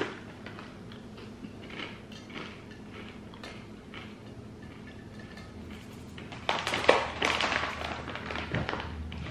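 Soft crunching and light clicks as pork loin meat crisps are eaten and picked from a plate, then about six and a half seconds in, a couple of seconds of louder crinkling as the plastic snack bag is handled.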